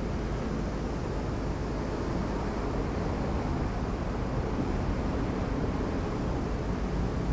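Steady outdoor background rumble with a hiss over it, even throughout with no distinct events.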